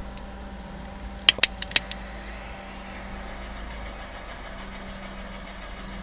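A quick run of about five sharp clicks a little over a second in, over a steady low hum.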